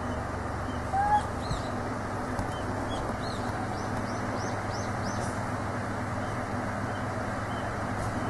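Short animal calls: one brief pitched call about a second in, then a quick run of about five faint, high chirps, over a steady background hum.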